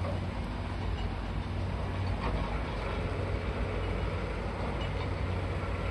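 High-reach demolition excavator's diesel engine running steadily as the machine works, with a few faint knocks from the demolition work.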